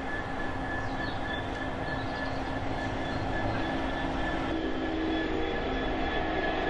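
Class 66-hauled freight train rolling past: a steady rumble of wheels on the track with a thin, high-pitched wheel squeal. A lower whining tone comes in about four and a half seconds in as the sound grows slightly louder.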